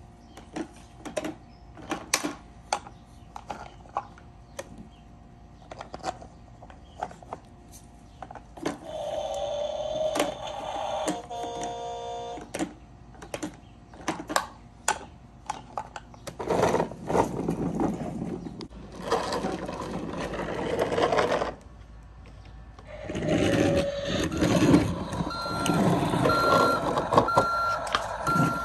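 Plastic toy garbage trucks and trash bins being handled: a string of sharp plastic clicks and clacks, then two long rattling stretches as loaded bins are tipped and emptied. An evenly repeating beep sounds through the last few seconds.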